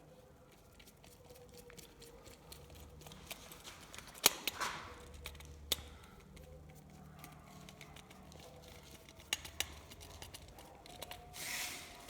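Small tools and parts being handled during electrical installation work: scattered sharp clicks and snips, one loud click about a third of the way in and two close together later, with brief rustling scrapes.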